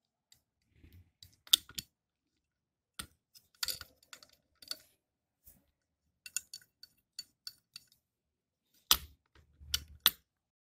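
Clicks and small metal knocks from hands working the knurled screws and lens holder of a Newton's rings apparatus. A quick run of light ticks falls in the middle, with sharper knocks about a second and a half in and twice near the end.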